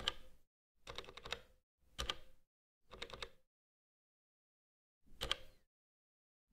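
Faint clicks of the Elektron Digitakt's push buttons being pressed, in five short bursts: one at the start, a double press about a second in, single presses at two and three seconds, then another about five seconds in.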